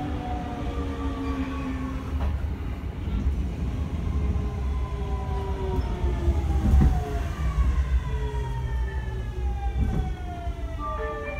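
Kintetsu 7000 series train's Hitachi GTO VVVF inverter whining under braking, heard from inside the car: several tones glide downward as the train slows, a fresh, higher set starting about seven seconds in and falling again, with a few steady tones near the end. A low running rumble and a few short knocks lie underneath.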